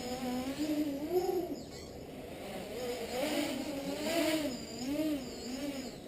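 Electric motors and propellers of a Leap 3D quadcopter in flight, a buzzing whine whose pitch rises and falls over and over as the throttle is worked.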